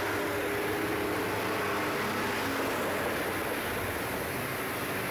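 Steady distant city background noise with a faint engine drone whose pitch slides slowly; no distinct firework bangs stand out.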